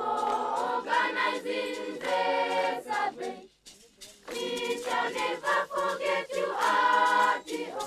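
Children's choir singing a cheerful song together, in phrases with a short pause about halfway through.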